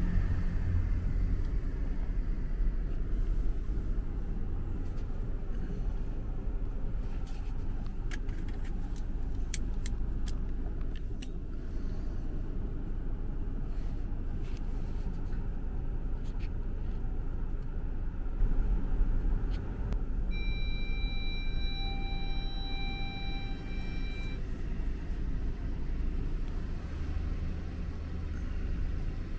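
Low, steady rumble of a car's engine and tyres heard inside the cabin as the car rolls slowly and idles. About two-thirds of the way in, a steady electronic tone sounds for about four seconds, with a short break near its end.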